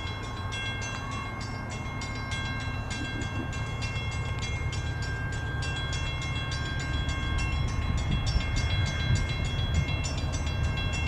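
Railroad grade-crossing bell ringing in rapid, evenly spaced strikes. Under it, the low rumble of an approaching freight train grows louder.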